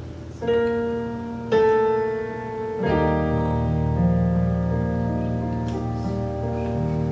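Instrumental worship music: a keyboard plays sustained piano chords, three new chords in the first three seconds, and a low bass joins about three seconds in.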